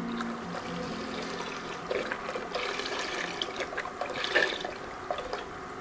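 Chicken broth pouring in a thin stream from a carton into a pot of broth and vegetables, splashing into the liquid, briefly louder a little past four seconds in.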